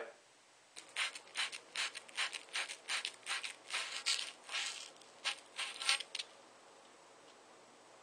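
Abrasive cloth being rubbed around the end of a copper pipe, a dozen or so quick rubbing strokes that stop about six seconds in. This is the pipe end being shined clean to prepare it for soldering.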